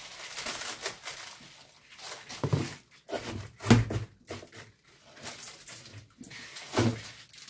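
Coarse salt pattering onto cut napa cabbage and leafy greens in a plastic basin, then gloved hands tossing the leaves: a hissy sprinkle in the first second, followed by several bursts of leaf rustling with dull bumps against the basin.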